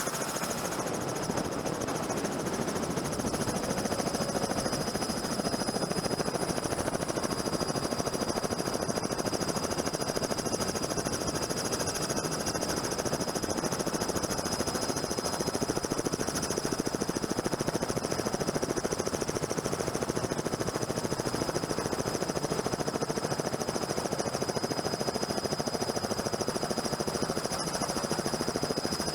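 Helicopter running steadily, its rotor chopping rapidly and evenly under a steady high turbine whine.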